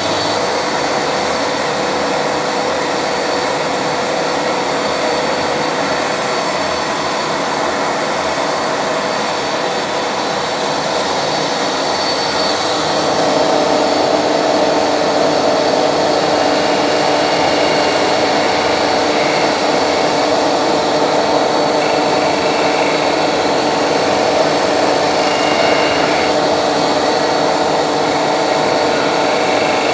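Record Power DS300 12-inch disc sander and the shop vacuum extracting from it, both running with a steady whir and hum. From about 13 seconds in it grows louder as a wooden template is pressed against the sanding disc, its edges being rounded over.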